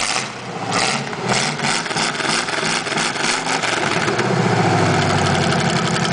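V8 derby-car engine running through open Super H 4-into-1 headers with short straight stacks and no mufflers. The exhaust pulses unevenly, about three beats a second, for the first four seconds, then settles into a steady idle.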